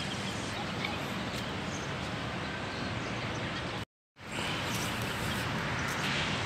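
Steady outdoor city background noise, a hum of distant traffic with a few faint bird chirps. It cuts out to dead silence for a moment about four seconds in, where two clips are joined.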